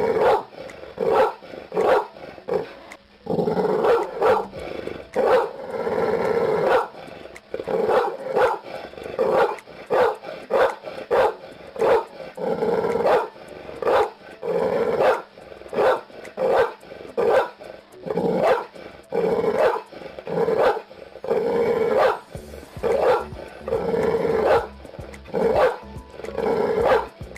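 Pit Bull barking repeatedly, short deep barks roughly once a second, broken by a few longer, drawn-out stretches of continuous barking.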